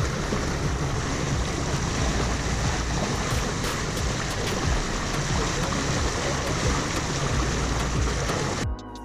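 Water rushing and splashing along a sailboat's hull at the bow, with irregular low rumbling of wind on the microphone. About 8.7 s in it cuts off abruptly and music takes over.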